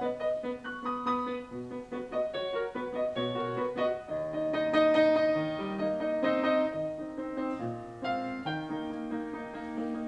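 Grand piano playing a solo accompaniment passage, a melody over sustained chords with no voices.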